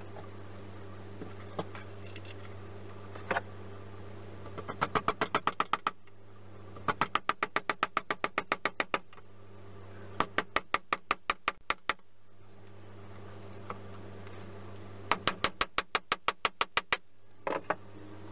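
Claw hammer tapping small nails through a brass hinge into the binder's wooden edge: four runs of quick light taps, about six a second, with pauses between them.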